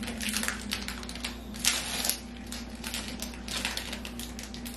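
Clear plastic wrapper of a stick candy crinkling and crackling as it is peeled and torn open by hand, in quick irregular bursts.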